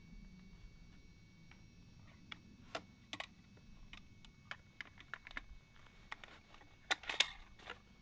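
Small, sharp clicks and rattles of a bolt-action rifle and its tripod being handled, scattered irregularly, with a louder cluster of clicks about seven seconds in; no shot is fired.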